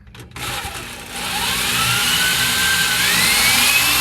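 Power drill starting about half a second in and running with a hiss, its motor whine climbing steadily in pitch over the next few seconds.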